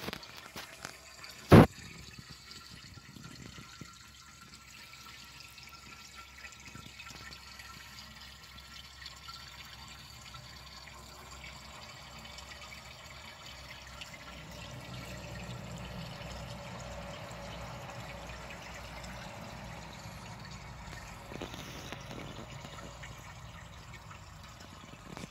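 Water trickling and splashing into an outdoor aquarium tank, a steady watery hiss that grows a little louder past the middle. A single sharp knock about a second and a half in.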